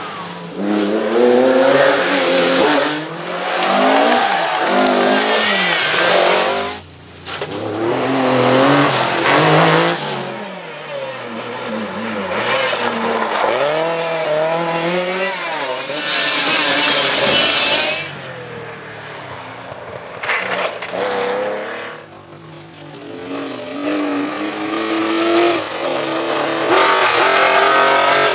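Historic rally cars passing one after another at speed, their engines revving up and dropping through gear changes. Tyres squeal now and then.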